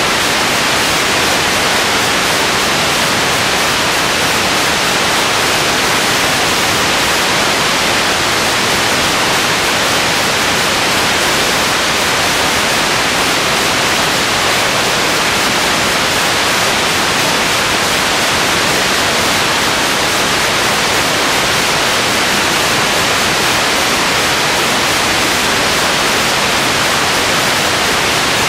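Steady, loud hiss of static with nothing else heard: the soundtrack carries only recording noise, not the fight or the crowd.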